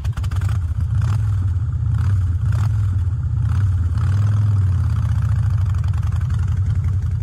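Harley-Davidson V-twin motorcycle engine idling with a steady, low rumble.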